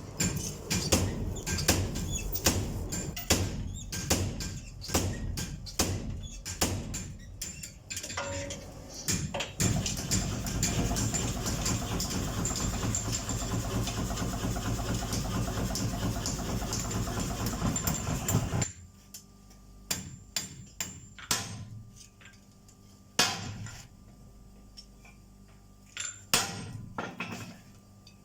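Hammer blows on hot steel at the anvil while forging an axe, irregular sharp strikes for the first nine seconds or so. Then a dense, steady machine noise runs for about nine seconds and cuts off suddenly, followed by a few scattered strikes over a faint steady hum.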